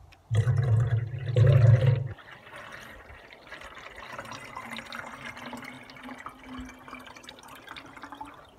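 Water poured from a plastic watering can into a plastic pressure-sprayer tank. For the first two seconds it pours heavily and loudly, then it goes on as a quieter steady trickle.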